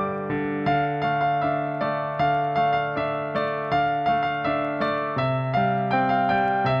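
Instrumental background music on a keyboard: a steady pattern of struck notes, about two a second, over sustained lower notes.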